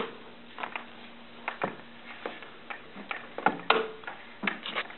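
A dog's paws splashing and knocking in the shallow water of a plastic kiddie pool: irregular sharp splashes and clicks, bunched together about three and a half seconds in.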